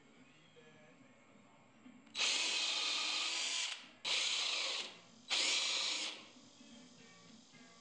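Cordless drill boring into a walnut carving in three short runs: the first about a second and a half long, then two shorter bursts, each cutting off when the trigger is released.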